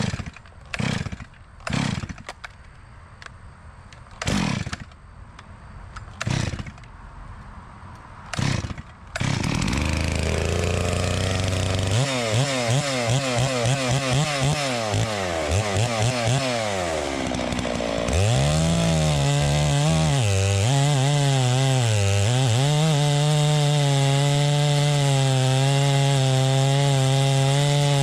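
Neotec MS 660-clone two-stroke chainsaw being pull-started. About six short pulls fire without catching, then the engine catches about nine seconds in and idles low. From about twelve seconds it is blipped up and down on the throttle, and from about eighteen seconds it runs at high revs, held near full throttle with a slight waver.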